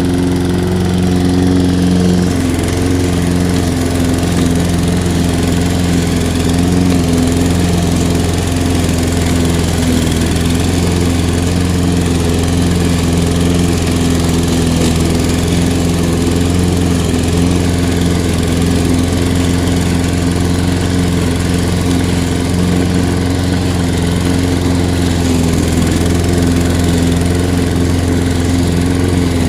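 Toro 21321 self-propelled mower's Briggs & Stratton 140cc single-cylinder engine running steadily under load while cutting thick, long-unmown grass.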